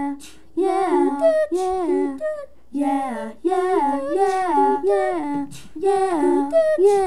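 A voice singing a wordless, repeating melodic phrase a cappella, in short phrases of about a second with brief gaps between, with no instruments.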